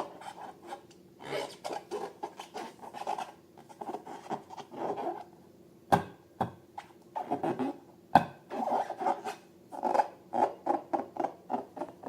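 Rubber balloons and slime being squeezed and rubbed by hand: a quick, irregular run of short squeaks and squelches, with two sharp clicks about six and eight seconds in.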